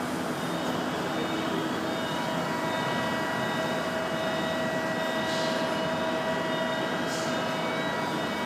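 Hydraulic drive of a large 2000-tonne Yawei press brake running, a steady hum with a whine of several held tones, and two short hisses about halfway through and near the end.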